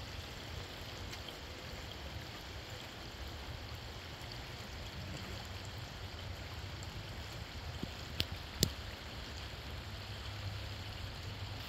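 Shallow stream running over stones, a steady babbling rush. Two short sharp clicks come about eight seconds in.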